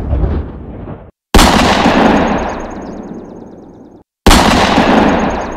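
Aerial firework shells bursting: a loud bang right at the start, then two more about three seconds apart, each dying away in a long rumble with a fast high crackle.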